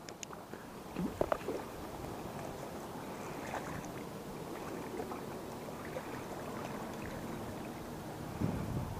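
Steady rush of water pouring over a river spillway, with a few short knocks about a second in.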